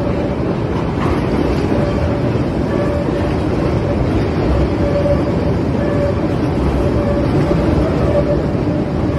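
CTA elevated 'L' train rolling slowly through a curved track junction: a steady rumble with a thin whining tone coming and going.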